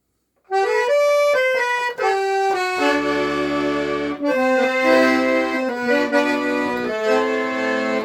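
Accordion (gaita) playing the instrumental intro of a gaúcho-style southern Brazilian song. It starts about half a second in with a quick melody of single notes, and about three seconds in the bass and chord accompaniment comes in under the tune.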